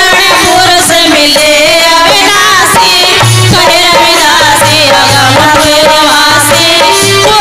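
Music from a Hindi folk devotional song (bhajan): a wavering melody over a steady hand-drum beat, with no lyrics.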